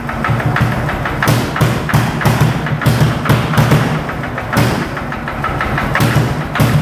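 Lanz Bulldog tractor's single-cylinder two-stroke hot-bulb engine running, with its uneven, heavy thumping beat of knocks, about two to three a second.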